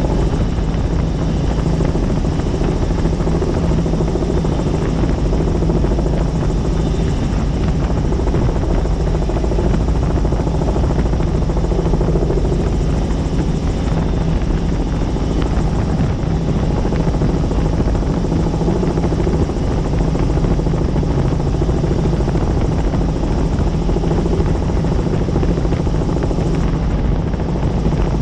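Helicopter in flight: steady, loud rotor and engine noise with an even low hum, running unchanged.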